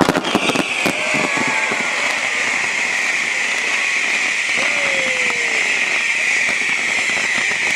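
Fireworks going off: a steady high hiss, sinking slightly in pitch, that starts abruptly just after the start, over a busy run of small crackling pops.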